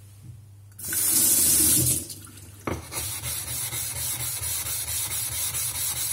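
Water runs in a short hiss for about a second, then a Nagura stone is rubbed back and forth on a lapping plate in quick, even strokes, about three a second: the Nagura being flattened.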